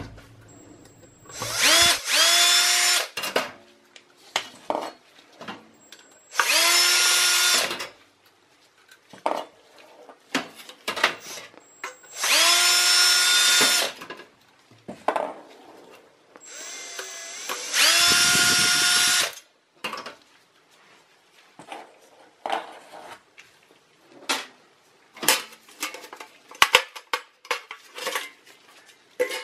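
Cordless drill with a driver bit backing screws out of a hard drive's metal mounting cage: four short runs of motor whine, each rising in pitch as it spins up, then holding steady. Light clicks and knocks of the metal cage and screws being handled fall between the runs and fill the last third.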